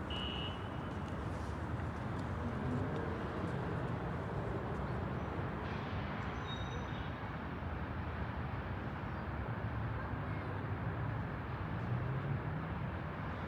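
Steady outdoor city ambience: a low hum of distant traffic from the city below, with a few brief faint high chirps.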